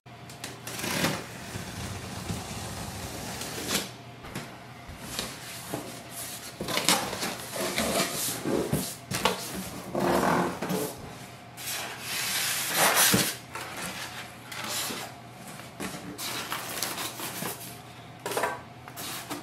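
Irregular rustling, crinkling and scraping of packaging being handled as a printer is unboxed: plastic wrap, styrofoam inserts and the cardboard box.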